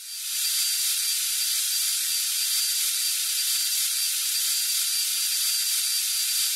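Surgical bone drill running freely with a steady high whine, fading in at the start.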